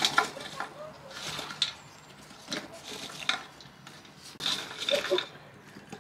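Charcoal briquettes clattering and scraping against each other and against the metal grill bowl as they are shifted by hand, in about four short bouts.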